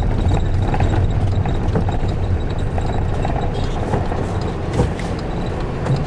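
Road and engine noise of a car driving along: a steady low rumble with a constant hiss above it.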